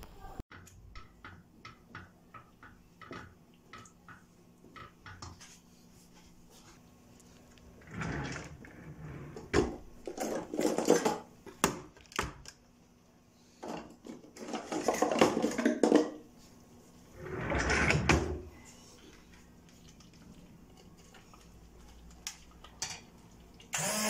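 A kitchen drawer full of utensils and gadgets is opened and rummaged through: light taps at first, then several bursts of clattering and rattling. Just before the end a hand-held immersion blender switches on with a loud steady whir.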